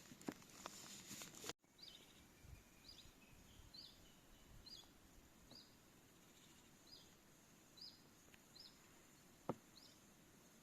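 Faint, evenly repeated short high chirps of a small bird, about one a second. Crackling handling clicks come first and cut off about a second and a half in, and there is a single sharp click near the end.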